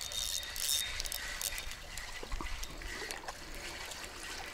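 Water trickling and splashing softly at the river's edge, an uneven hiss with no single loud event.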